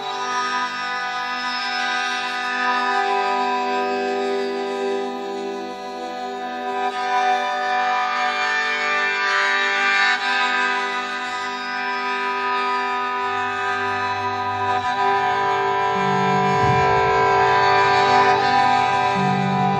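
Experimental music: a dense drone of many held tones. Lower bass notes come in during the second half.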